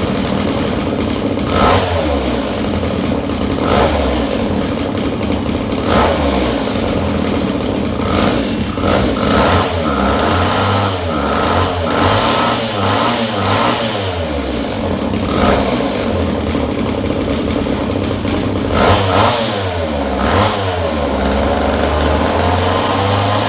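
Echo two-stroke chainsaw engine running with its bar off after a carburetor clean, idling and blipped to high revs several times, each rev falling back to idle, while it is being tuned.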